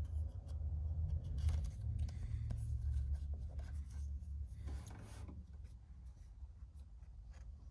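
Trading cards and their pack being handled, slid and rubbed against each other: soft rustling and scraping with small clicks over a low rumble of handling noise.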